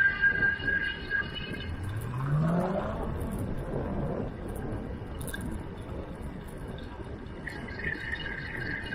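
Road and wind noise of a fast bicycle ride on a paved path, with a steady high whine that drops out about a second in and comes back near the end. About two seconds in, a vehicle's engine rises in pitch as it speeds up.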